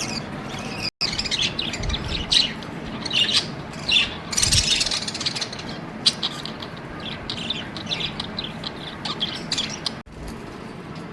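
Budgerigars chirping and chattering in a busy run of short, high calls. The sound cuts out for an instant twice: about a second in and near the end.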